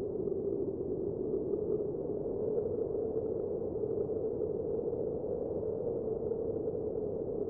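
A steady, muffled low drone with no distinct notes, beats or breaks, an ambient soundtrack bed.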